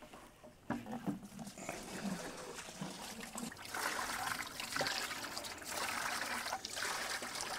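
A few light knocks as the tank is handled, then, from about four seconds in, rusty flushing water pouring out of a motorcycle fuel tank into a bucket in an uneven, splashing stream.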